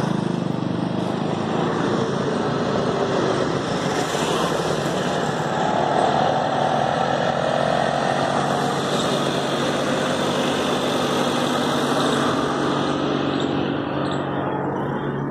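Maruti Suzuki Esteem's engine running steadily at idle during an HHO engine carbon-cleaning treatment. The sound turns duller near the end, heard from inside the car's cabin.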